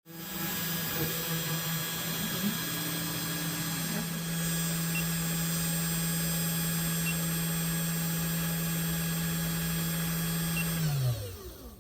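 Genmitsu 3018-PROVer desktop CNC mill running, its spindle motor giving a steady whine, with brief changing tones from the stepper-driven axes early on. About eleven seconds in, the spindle is switched off and its pitch falls as it spins down.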